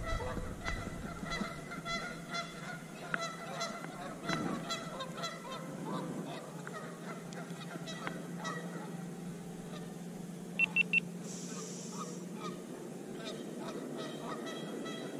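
Geese honking over and over, many short calls overlapping. About ten and a half seconds in come three short, identical high beeps in quick succession.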